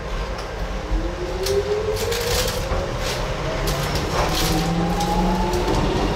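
Docklands Light Railway train's traction motors whining as it gathers speed, the pitch rising steadily, with short clicks and knocks from the wheels on the track.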